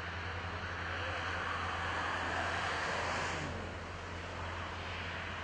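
Heavy diesel dump trucks and earthmoving machinery running, a steady low engine drone. A rushing noise swells from about a second in and cuts off suddenly a little past the middle.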